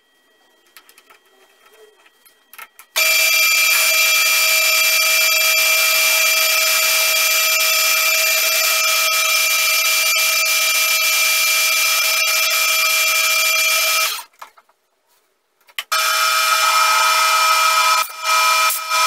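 A few faint clicks as an aluminium bar is set in the chuck. Then a CQ9332A metal lathe runs with a loud, steady, high-pitched whine while the tool turns the aluminium bar. It stops about two-thirds of the way through and starts again after about two seconds, as a knurling tool presses into the spinning piece.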